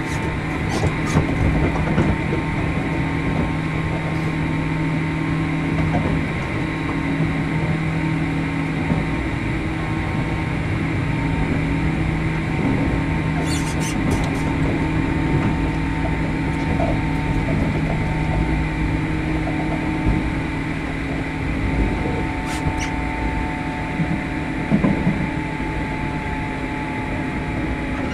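Onboard running sound of a JR Kyushu 103 series (1500 subseries) electric train, heard inside the motor car MoHa 102-1510: a steady rumble of wheels on rail with a steady motor hum, broken by a few sharp clicks.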